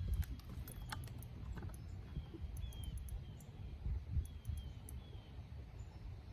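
Spinning reel clicking in scattered, irregular ticks under the load of a heavy fish on a bent rod, over a steady low rumble of wind on the microphone. A few short, faint high chirps of birds come through.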